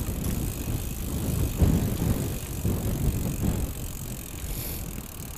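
Strong wind buffeting a bicycle-mounted camera's microphone in irregular gusts as the bicycle rolls along rough tarmac.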